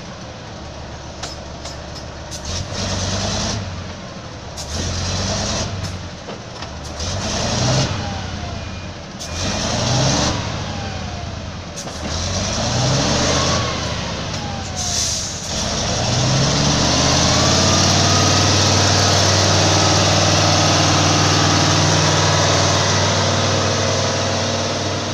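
A heavy vehicle's engine revving up and dropping back again and again, about every two seconds, then held steadily at high revs for the last third or so.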